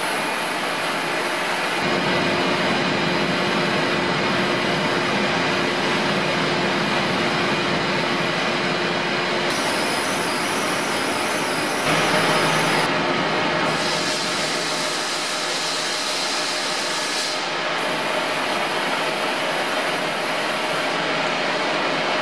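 Webster & Bennett 72-inch CNC vertical turning lathe running under power: a steady machine noise whose pitch and loudness shift several times, with a sudden step up about twelve seconds in.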